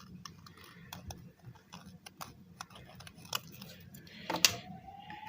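Light clicks and taps of plastic model-kit pieces being handled and pressed together, with one sharper knock about four seconds in. Just after it a police siren starts up in the background, one tone rising slowly.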